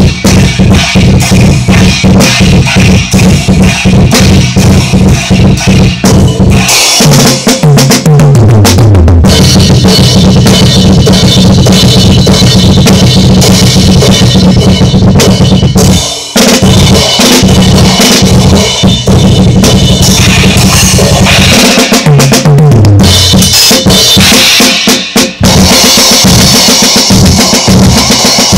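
Acoustic drum kit played in a fast metal style: rapid double bass drum strokes under snare hits and crashing cymbals. Twice there is a fill running down the toms, falling in pitch, and the playing breaks off briefly about halfway through.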